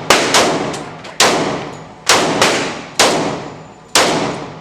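Gunshots fired at a steady pace, the loudest about one a second with a few other shots between them, each leaving an echoing tail.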